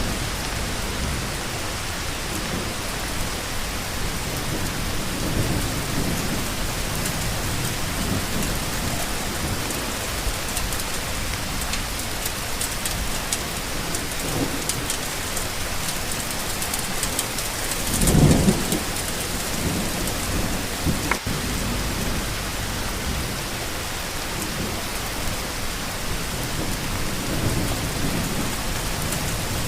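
Steady rain falling, an even hiss of drops, with slow low rumbles underneath and one louder low rumble about two-thirds of the way through.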